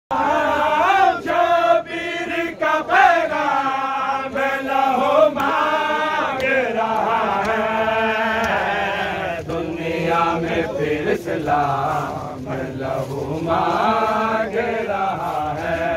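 Men chanting a nauha, a Shia Muharram mourning lament in Urdu, in long drawn-out sung lines, with a few sharp knocks in the first five seconds.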